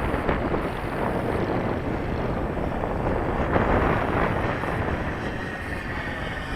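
Strong wind rumbling on the microphone, with the E-flite Carbon-Z T-28 model warbird flying in it. A faint, slowly falling whine from the plane is heard in the second half.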